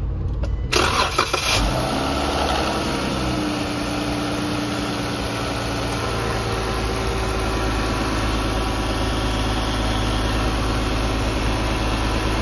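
Dodge Challenger's 3.6-litre Pentastar V6 being started: it catches about a second in and settles into a steady idle, with the accessory belts squeaking. The engine is run to bleed air out of the cooling system after a thermostat and housing replacement.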